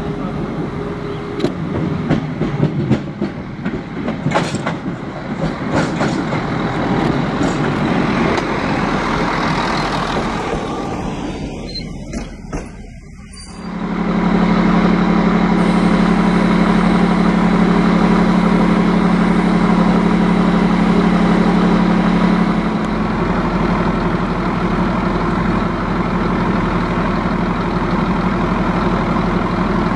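Narrow-gauge M27 diesel railcar rolling over yard points, with sharp wheel clicks and knocks over its running noise. About halfway through it gives way to the railcar's diesel engine idling steadily, the note dropping slightly later on.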